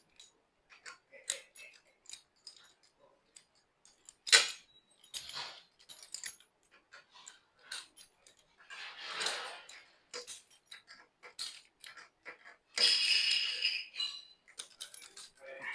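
Scattered metallic clicks, taps and clinks of coffee grinder parts and tools being handled during disassembly for cleaning, with a sharper knock about four seconds in. Two short noisy swishes come about nine and thirteen seconds in, the second louder.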